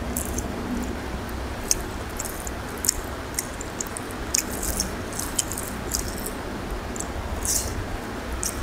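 Close-up mouth sounds of a person chewing a handful of rice and chicken curry, with many short wet smacks and clicks, while fingers squish and mix rice and curry on the plate. A low steady hum sits underneath.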